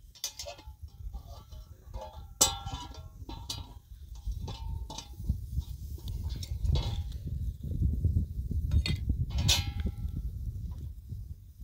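Dry twigs snapping and rustling as they are fed into a small wood fire under a griddle, over a gusty low rumble that grows stronger in the second half. A few short goat bleats come through.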